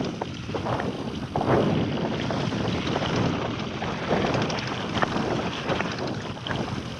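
Scott Genius LT 710 Plus mountain bike riding a dirt trail: tyres on dirt and stones, with irregular rattles and knocks, and wind buffeting the microphone.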